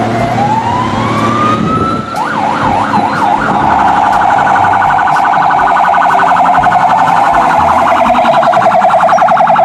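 Electronic siren of a toy fire engine: a wail that rises over the first two seconds, then a few quick up-and-down warbles, then a fast pulsing steady tone that cuts off abruptly at the end.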